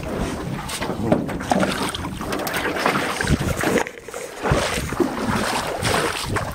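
Water splashing and sloshing around a canoe as it is paddled, with wind buffeting the microphone. The noise surges unevenly and dips briefly about four seconds in.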